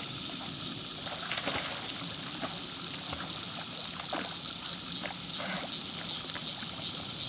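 Water splashing and trickling lightly as a vizsla swims through a duckweed-covered pond, with a few sharper splashes, the strongest about a second and a half in. A steady high hiss runs underneath.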